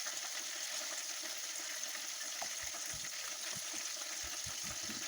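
Leftover rice, shrimp and egg frying in hot oil in a pan: a steady sizzling hiss.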